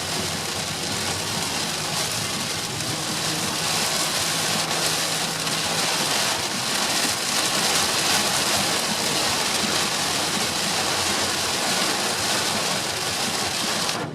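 Heavy rain hitting a moving car, with steady tyre and road noise, heard from inside the car; the sound cuts off abruptly at the very end.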